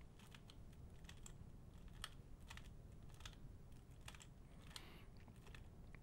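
Faint clicks of a 3x3 speedcube's layers being turned in quick repeated moves, a few irregular clicks a second.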